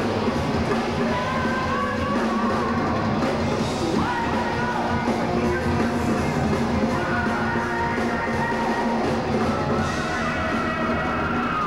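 Heavy metal band playing live: loud distorted guitars, bass and a drum kit, with the singer's voice over them.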